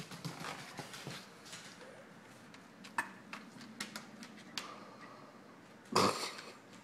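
Scattered light clicks and taps of a cocker spaniel's claws on a wooden deck, with a short louder scuffle about six seconds in.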